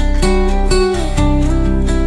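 Background music: a strummed acoustic guitar over a steady bass and beat.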